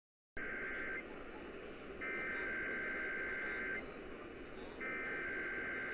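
Emergency Alert System SAME header received over the radio: harsh two-tone data bursts that start abruptly a moment in, three of them with about a second of static between each. This digital header marks the start of the monthly EAS test.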